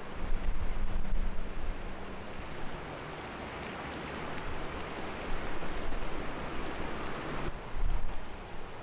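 Rushing noise with low rumble from wind on the microphone, a few faint clicks over it; the rushing swells and then cuts off abruptly about seven and a half seconds in.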